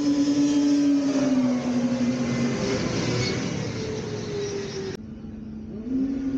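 Snowmobile engine running with a strong, steady drone that drops in pitch about a second and a half in. The sound cuts off abruptly about five seconds in, and an engine drone rises back in a second later.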